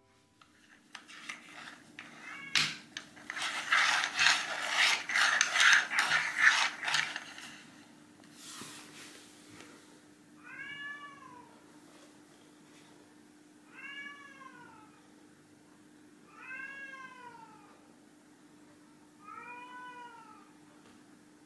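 Scraping and clattering for several seconds as small plastic caps are shuffled across a wooden floor by hand. Then a red tabby cat meows four times, each a short call that rises and falls, about three seconds apart.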